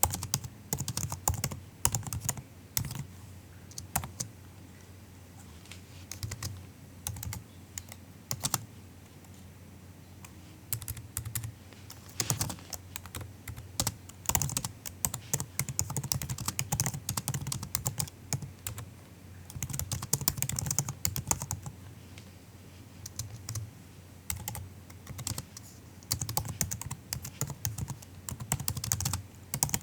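Typing on a MacBook's built-in laptop keyboard: soft, quick key clicks in bursts of steady typing, with short pauses and a few isolated keystrokes between.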